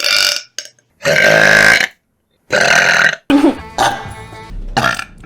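A rapid series of about five loud girls' burps, each one cut off abruptly with a short silent gap before the next. The longest and loudest comes about a second in and lasts nearly a second.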